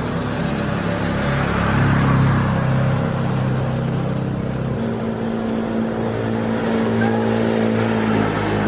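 A motor vehicle's engine running, its pitch shifting in the first few seconds and then holding steady from about five seconds in.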